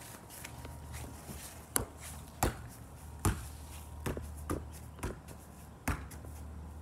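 A soccer ball being juggled with the feet: a run of sharp thuds as the foot strikes the ball, one every half second to a second, the loudest a little past the middle.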